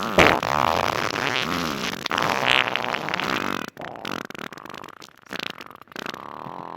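A run of human farts, pitched and wavering, with the loudest just after the start. They thin out into quieter, choppy sputters and short pops in the second half.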